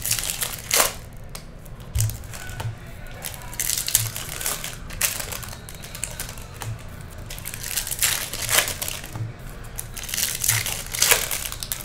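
Foil trading-card pack wrappers crinkling and tearing as they are opened by hand, in irregular short rustles.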